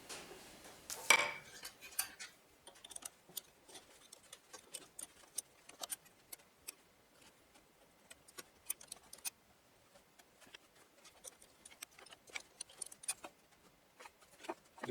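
Small irregular metallic clicks and clinks of a spanner and hand tools working on the steel cutter block of a planer thicknesser, with one louder knock about a second in.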